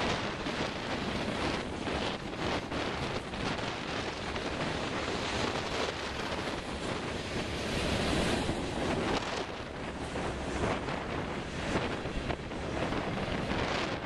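Strong gusty wind buffeting the microphone, over the rumble of a freight train's cars rolling past on the rails.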